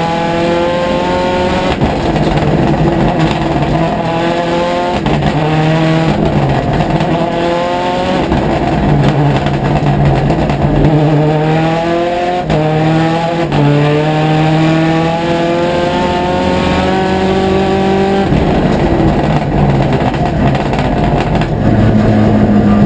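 Mitsubishi Lancer Evolution rally car's turbocharged four-cylinder engine at full throttle, heard inside the cabin: the revs climb again and again, dropping back at each of several upshifts.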